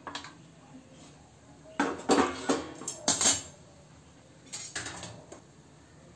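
A steel plate used as a lid is lifted off an iron kadhai with a metal spatula, metal clanking and scraping on metal. There is a cluster of clanks about two to three seconds in and fainter clinks a couple of seconds later.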